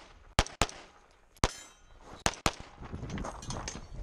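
Competition pistol shots fired rapidly at a shooting stage: a quick pair about a quarter second apart, a single shot near the middle followed by a brief high ringing, then another quick pair.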